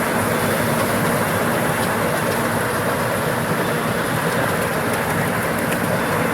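A machine running steadily: an even, loud engine-type noise with a faint steady hum.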